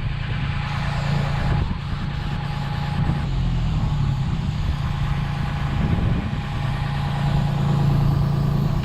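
Large diesel engine running steadily with a low hum, with a hiss from spray painting over it.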